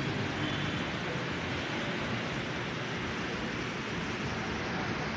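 Steady background noise without distinct events or any running engine.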